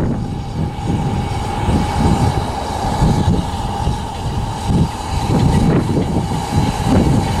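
Double Fairlie steam locomotive Merddin Emrys and its train rolling slowly toward the listener, wheels rumbling on the rails, with a steady high-pitched tone over the rumble.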